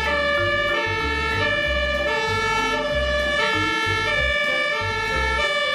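Background music: a synth melody stepping between held notes over a steady, pulsing bass beat.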